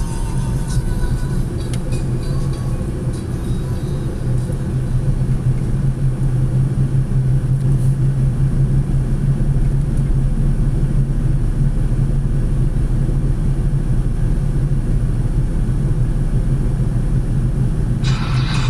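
Car driving at road speed, heard from inside the cabin: a steady low drone of engine and tyre noise.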